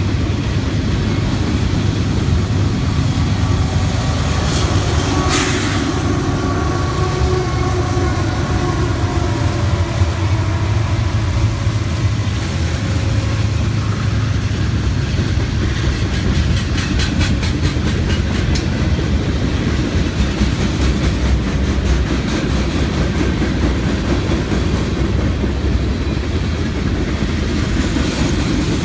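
Freight cars of a long mixed freight train rolling past close by: a steady rumble of steel wheels on rail with clickety-clack over the rail joints. There is a run of quick clicks a little past halfway.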